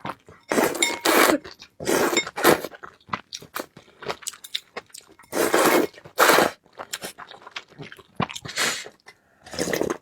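A person eating noodles and barbecue chicken close to the microphone: bites and chewing come in five loud bursts with short quiet gaps between.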